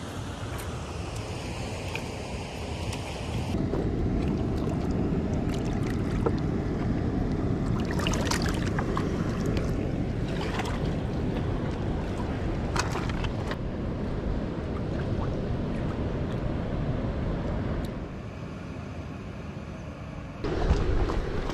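Shallow lake water sloshing and splashing around a hand releasing a northern pike, with wind buffeting the microphone. A few short splashes come in the middle.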